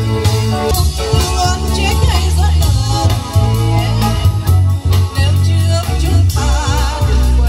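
Live band music amplified through PA speakers: a woman singing into a microphone over drums, electric guitar and keyboard, with a strong bass line. She holds a wavering note with vibrato near the end.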